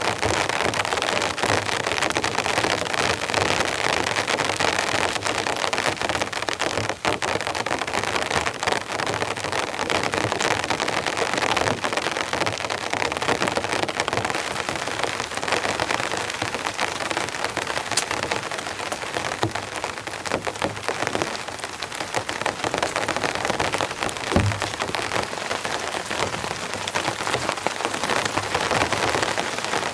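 Steady rain falling, a dense patter of drops with many small sharp ticks. A single deeper thump comes about 24 seconds in.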